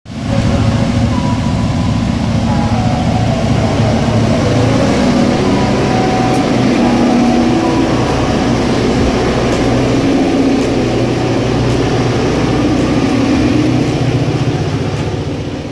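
Diesel freight locomotives passing close by, engines running with a steady low drone, followed by loaded hopper cars rolling past on the rails; the sound fades near the end.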